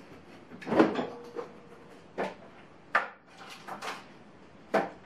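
Kitchen cupboard or fridge door being opened and shut, with a string of about six sharp knocks and clatter as things are taken out and handled. The loudest knock comes about a second in and is followed by a brief faint ring.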